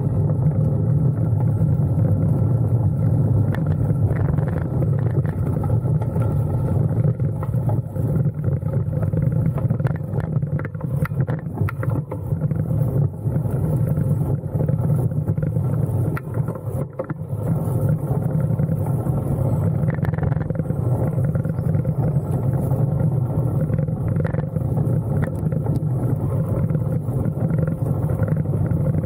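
Steady low drone of the vehicle carrying the camera as it rides along a dirt path, with small bumps and rattles from the rough ground mixed in.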